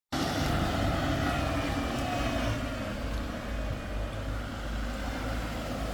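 A vehicle engine running steadily, with a constant low rumble and hiss. Faint engine tones are heard in the first couple of seconds.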